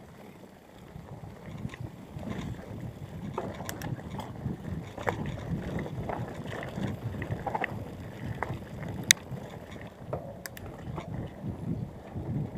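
Mountain bike rolling along a dirt trail: a steady rumble of tyres over the ground, with scattered clicks and rattles from the bike, the sharpest about nine seconds in, and wind on the microphone.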